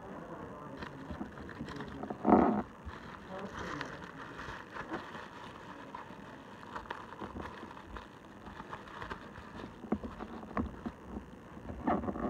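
Faint, irregular taps, clicks and rustles of small objects being handled at an office counter, with one louder short knock about two seconds in and a few more knocks near the end.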